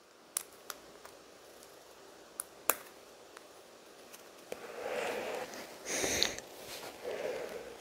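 Small plastic LEGO pieces being handled and pressed into place: a few sharp, separate clicks in the first three seconds, then softer noisy handling sounds in the second half.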